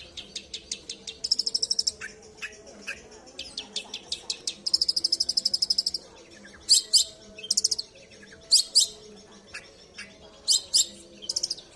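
Long-tailed shrike (cendet) singing: rapid chattering trains of short, high notes, two fast buzzy rattles in the first half, and loud, sharp calls in the second half.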